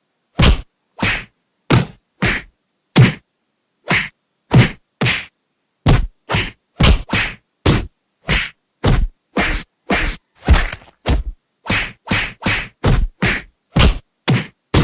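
A sound effect of short whacking hits repeated in quick succession, about two a second and getting a little faster toward the end. A faint high steady tone runs beneath them.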